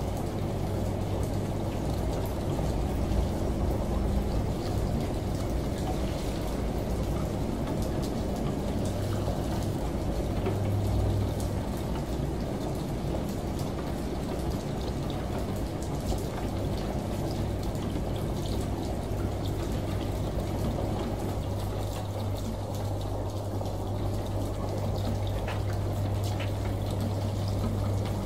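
Layered ambient mix of a washing machine running with a steady low hum, under the pouring water of a shower and rain with scattered faint drop ticks.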